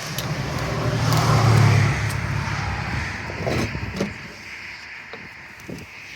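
A road vehicle passing by, its low hum swelling to a peak about a second and a half in and then fading away.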